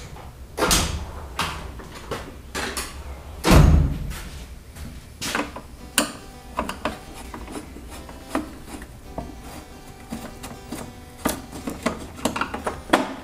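Clattering and knocks from hand tools and the welder's sheet-metal case being handled on a workbench, with one heavy thump about three and a half seconds in.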